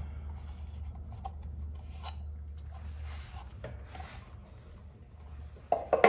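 Soft rubbing and scraping handling sounds, with a low steady hum that stops about three seconds in and a sharper knock just before the end.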